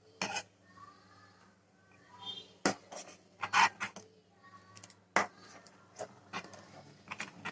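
A utensil knocking and scraping against a pot as crushed cake is stirred into hot milk: a run of sharp, irregular clinks and knocks, several a second at times.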